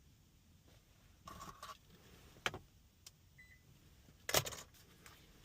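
A few sharp clicks, the loudest about four seconds in, with a short buzzing tone about a second in and a faint brief beep in between, during car key programming.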